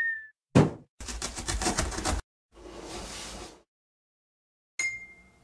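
Cartoon sound effects: a cardboard box landing with a thump about half a second in, then a fast rattling for about a second, a softer rushing noise, and a short knock with a brief ringing tone near the end.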